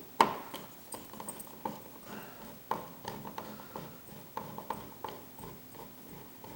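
Irregular light clicks and taps of a screwdriver and a dimmer switch being handled at an electrical wall box, with one sharper knock just as it begins.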